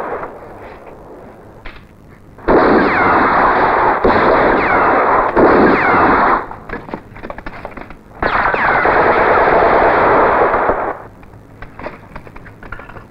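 Film battle sound effects: two long bursts of machine-gun fire, each a few seconds long, with scattered single shots and cracks between them and near the end.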